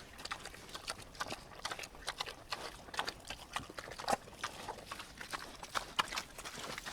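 Pigs eating: a fast, irregular run of short smacking and clicking chewing sounds.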